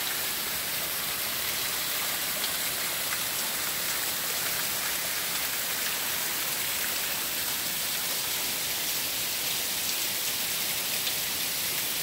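Waterfall: water falling and splashing onto rock and into a shallow pool, a steady hiss with no breaks.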